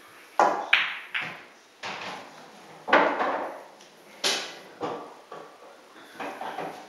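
A pool shot: the cue tip strikes the cue ball, followed by a series of sharp clacks and knocks spaced irregularly over several seconds. These are balls hitting each other and the cushions, and an object ball dropping into a pocket.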